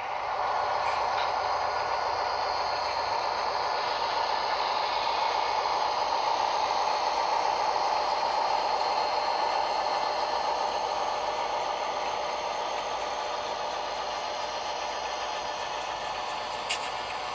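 Model diesel locomotives and boxcars rolling past on the track, a steady whirring rattle of motors, gears and wheels on rail. It swells just after the start and eases off toward the end, with a sharp click near the end.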